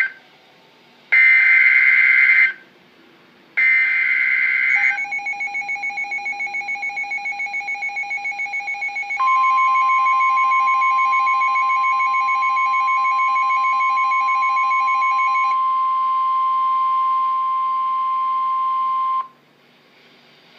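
Emergency Alert System broadcast tones: two short bursts of the SAME digital header data, each about a second long with a gap between them. A rapidly pulsing alert tone follows, then a steady single-pitched warning alarm tone that runs for about ten seconds and cuts off abruptly.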